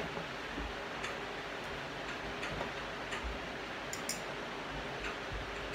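Knife and fork tapping and scraping against a ceramic plate while fried paneer nuggets are cut: a few light, irregular clicks, two close together about four seconds in, over steady room hiss.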